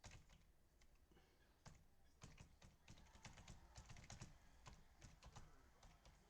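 Faint typing on a computer keyboard: quick, irregular keystrokes, coming thickest from about a second and a half in.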